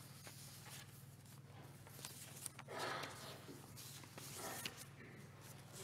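Faint room tone under a steady low electrical hum, with soft rustling and shuffling of paper at the lectern; the most distinct rustle comes about three seconds in.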